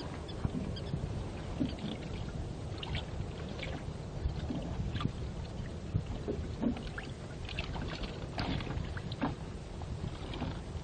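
Water lapping and splashing irregularly against the hull of a small rowboat, over a steady low rumble.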